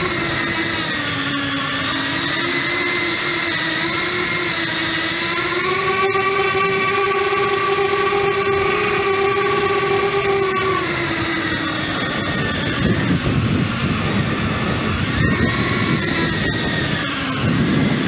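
Skystars Angela145 cinewhoop FPV drone's motors and propellers whining, heard close up from the drone's own camera, the pitch rising and falling with throttle. In the last third, gusty wind buffets the microphone with a low rumble under the whine.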